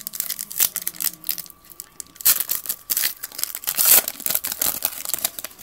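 Foil wrapper of a 2011-12 NBA Hoops trading card pack crinkling and tearing as it is ripped open. Irregular crackles build to the loudest tearing about two to four seconds in.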